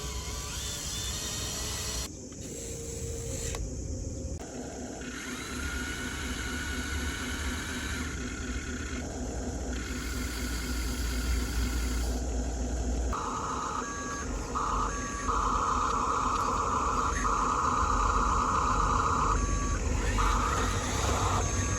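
Huina remote-control construction toy's small electric motors whirring steadily, with electronic reversing-alarm beeps starting about two-thirds of the way in, sounding on and off in short blocks.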